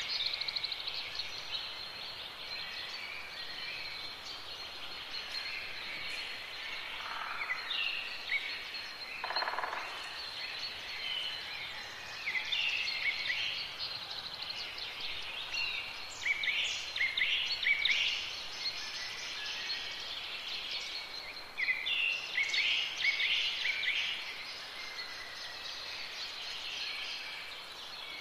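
Birds chirping in short bursts over a steady high-pitched background hiss.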